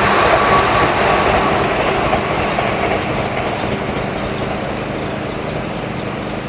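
A JR Ryomo Line train running through a level crossing. The rolling noise of its wheels on the rail fades steadily as it moves away.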